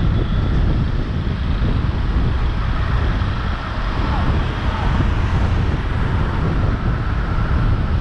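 Wind buffeting the microphone and road noise from a car driving in city traffic. The rumble is loud and steady, and a few faint higher tones drift through it.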